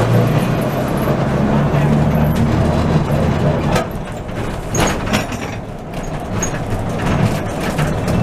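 Historic electric tram running on rails, heard from the driver's platform: a steady low motor and gear hum that dies away after about three seconds, then a few sharp clanks and knocks as the tram coasts while the driver winds the hand-brake wheel.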